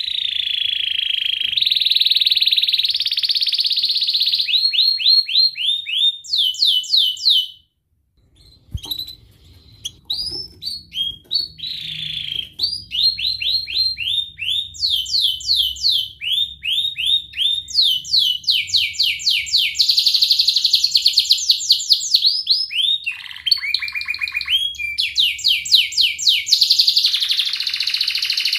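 Domestic canary singing a long, varied song: held buzzing rolls alternate with quick runs of repeated rising and falling chirps. The song breaks off briefly near the 8-second mark, then resumes.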